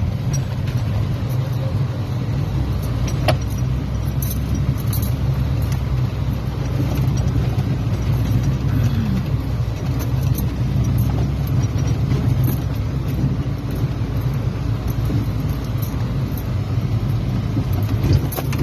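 Off-road 4x4 vehicle driving, its engine making a steady low drone, with scattered light clicks and rattles over it.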